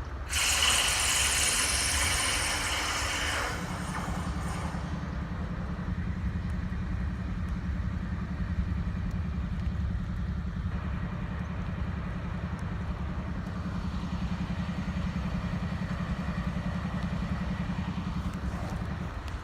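Diesel locomotive engine running with a steady low rumble. A loud hiss with a high whistle-like tone lasts for about the first three seconds, and a steady hum joins from about three and a half seconds in.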